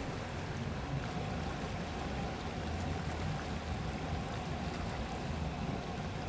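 Fishing boat underway at sea: a steady engine drone with water rushing along the hull.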